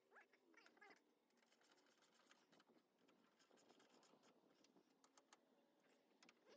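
Near silence with faint scattered light clicks and ticks.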